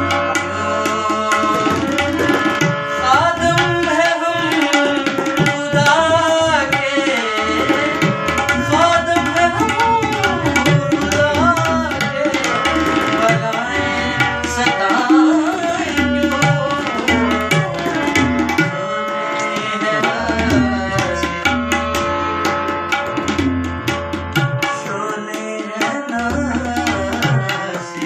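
Tabla playing a fast, continuous rhythm under sustained harmonium notes: the instrumental accompaniment of a ghazal.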